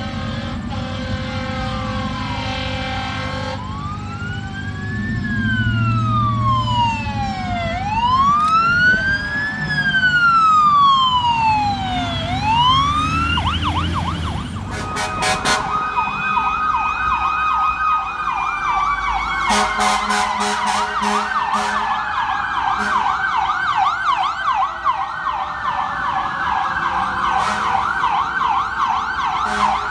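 Emergency vehicle sirens. First comes a steady horn note, then an electronic siren wailing slowly up and down. After that, a fast yelp plays under a siren tone that falls slowly in pitch, with a rapid string of short sharp blasts about two-thirds of the way through.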